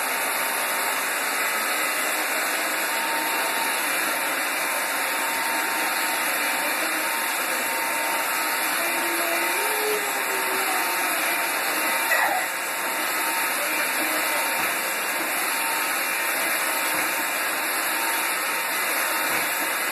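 iRobot Roomba robot vacuums running with a steady whirring hiss of the vacuum motor and brushes, with one brief louder sound about twelve seconds in.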